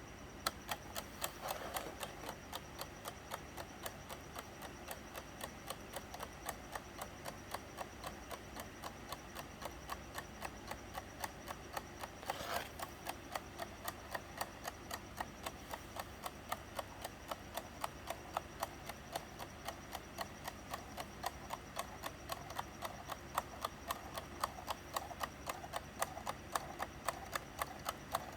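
3D-printed tourbillon clock movement ticking steadily, its escapement clicking about three times a second, with a brief louder noise about twelve seconds in.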